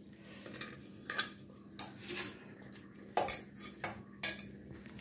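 Metal pressure cooker pan knocking and clinking against a steel mesh strainer and bowl as cooked greens are tipped out to strain: several short clatters, the loudest about three seconds in.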